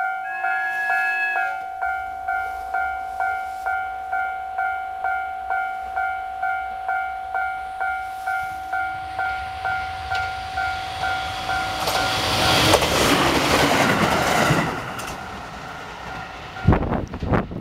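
Japanese level-crossing warning bell ringing, an electronic two-tone ding about twice a second, with a train horn sounding briefly about a second in. About two-thirds of the way through, an Aoimori Railway electric train passes with a loud rush of wheel and running noise, then the dinging stops and a sharp thump comes near the end.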